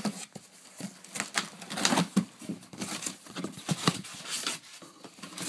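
Cardboard box and packaging being handled and opened: a quick, irregular run of taps, knocks and scrapes with rustling in between.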